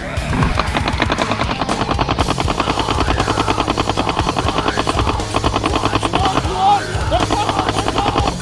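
Electronic paintball marker firing long, rapid strings of shots, about ten a second, with brief pauses, over background music.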